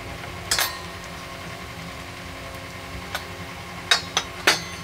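A few sharp clinks of a steel spoon against metal kitchenware: one about half a second in, then several close together near the end.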